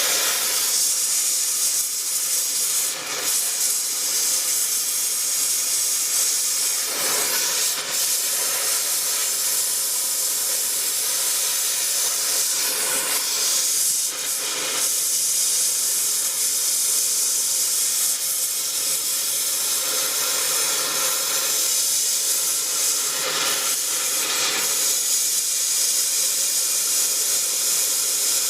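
A steady, loud hiss, strongest in the high range, with a few brief surges along the way.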